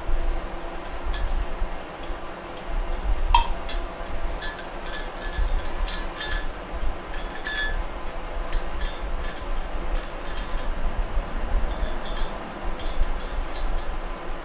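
Small steel valve-train parts clinking and ticking as valve springs and retainers are fitted onto the valve stems of a Honda lawnmower engine's cylinder head by hand: one sharp ringing clink about three seconds in, then many light metallic clicks. A steady low hum runs underneath.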